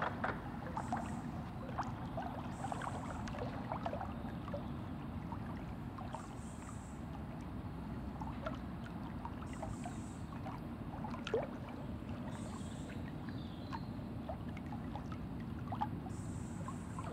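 Small water lapping and knocking against a boat hull over a steady low rumble, with one sharper knock about eleven seconds in.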